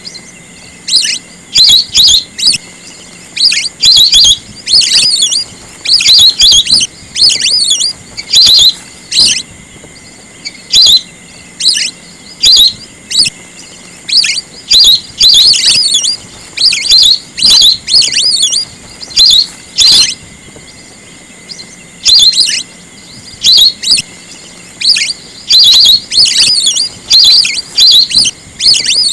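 Lesser whistling ducks calling: loud, shrill whistled notes in quick clusters that repeat about once a second, with a few short pauses between runs.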